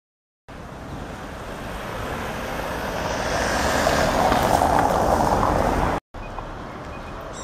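Road traffic noise from a vehicle that grows steadily louder as it approaches, then cuts off abruptly about six seconds in, leaving quieter street noise.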